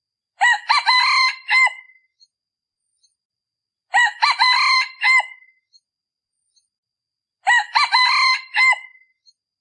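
Male junglefowl decoy rooster crowing three times, about three and a half seconds apart, each crow short and clipped. This is the call used to lure wild junglefowl cocks in the cool season.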